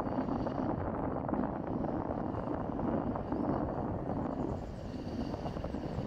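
Steady low rumble of an aircraft flying overhead, with a faint high whine above it.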